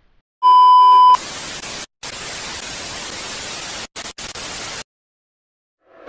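TV glitch sound effect: a loud, steady, high test-tone beep lasting under a second, cut off sharply by television static hiss. The static runs for about three and a half seconds, drops out briefly a few times, and stops abruptly.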